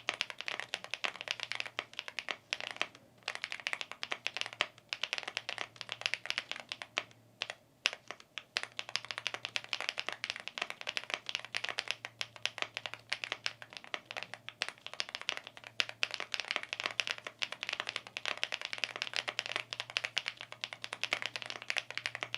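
Fast, continuous typing on a Chilkey ND75 aluminium 75% gasket-mounted mechanical keyboard, a dense run of keystroke clacks with a couple of short pauses. The keyboard is mounted on silicone pins in place of its stock O-rings.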